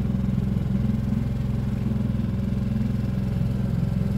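Small outboard motor on an inflatable dinghy running steadily, close by, with an even low pulsing throb.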